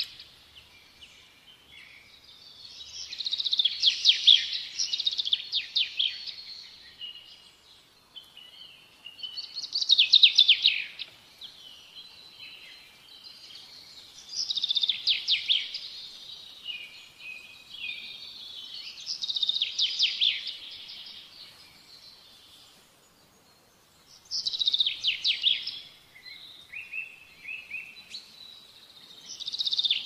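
House sparrows chirping in quick chattering bursts that come about every five seconds, with quieter chirps in between.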